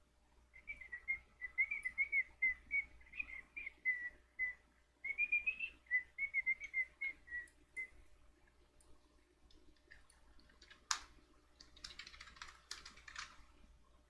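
A person whistling a short, wavering tune of quick notes for about seven seconds, then a sharp click and a brief run of computer keyboard typing near the end.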